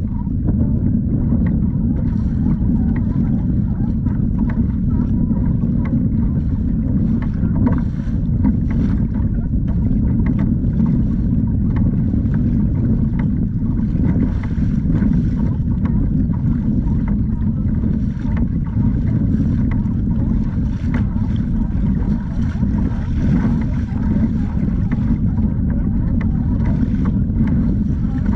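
Steady low rumble of wind buffeting the kayak-mounted camera's microphone, with small splashes of water against the hull now and then.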